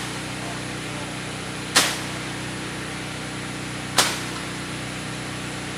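Sharp strikes about every two seconds, each dying away quickly, over a steady low mechanical hum.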